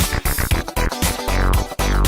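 Upbeat electronic background music with a steady, driving beat.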